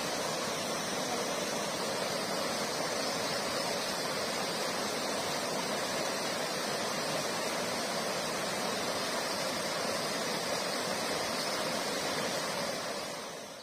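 Floodwater rushing in a torrent over a road causeway, a steady, even sound of churning water that fades out near the end.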